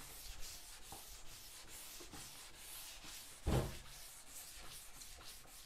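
Sanding block with 320-grit sandpaper rubbed back and forth over the finished wooden top of a Victrola record cabinet, wet-sanding the finish with liquid finish restorer. A short, louder thump about three and a half seconds in.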